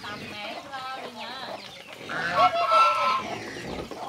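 A flock of poultry calling, many birds at once with short overlapping calls, loudest a little past the middle.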